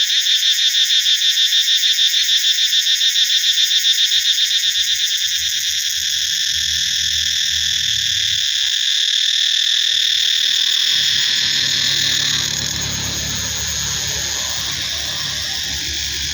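Cicadas buzzing loudly in a dense high-pitched chorus. The chorus pulses rapidly at first, then settles into a steadier drone that eases a little near the end, with a faint low rumble underneath from about four seconds in.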